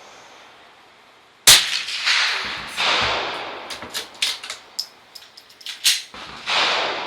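A single crack from a Mossberg 802 Plinkster bolt-action .22 rifle about a second and a half in, followed by a quick cluster of metallic clicks and another click near the end, as the bolt is worked. Swells of hissing noise come and fade between the clicks.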